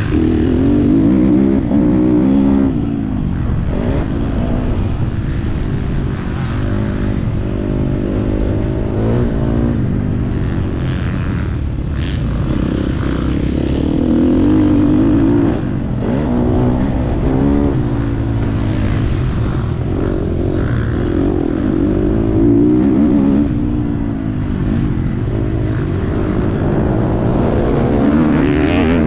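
Dirt bike engine on a motocross track, its pitch rising and falling over and over as the rider opens and closes the throttle through the turns and straights. Near the end a second dirt bike runs close alongside.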